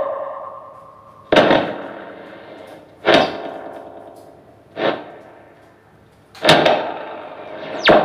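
Amplified noise performance through a guitar amp and effects: five sharp, distorted hits about a second and a half apart, each dying away in a long reverb tail.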